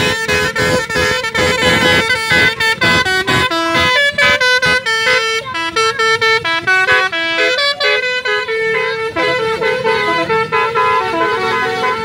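Multi-tone basuri telolet bus horn playing a fast melody of short notes that change pitch quickly. It stops at the very end.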